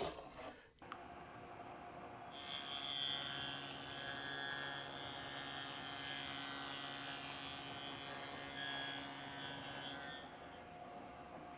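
Table saw with a wobble dado blade running and cutting a 3/16-inch dado in a plywood drawer side: a steady motor hum and whine, louder from about two seconds in and easing off near the end.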